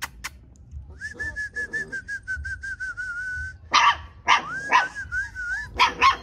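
Puppies whining in long, high, wavering whines, broken by a few short sharp yaps near four and six seconds in.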